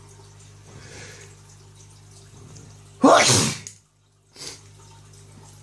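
A man sneezing once, loudly, about three seconds in: a voiced 'achoo' that falls in pitch and ends in a hissing blast. A couple of faint in-breaths come before it.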